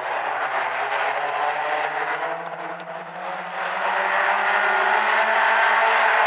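A pack of mini stock race cars running together around an oval, many engines at once. The sound dips briefly around the middle, then swells louder as the pack comes closer.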